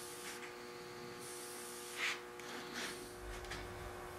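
Quiet steady electrical hum, with a short soft swish about two seconds in and another near three seconds as a brush spreads tung oil over the wooden table leaves.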